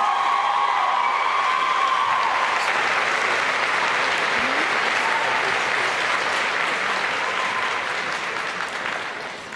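Audience applauding, with the last held note of the music fading out over the first couple of seconds; the applause thins out near the end.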